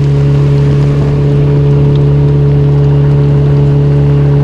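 Small boat's outboard motor running at a steady high speed, a constant even hum over the rush of water along the hull.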